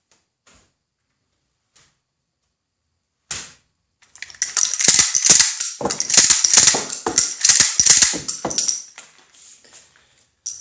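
A shotgun being dry-fired and reloaded: one sharp click about three seconds in, then a fast run of metallic clacks and clatter as the action is worked and shells are dropped into the port, and one last click near the end.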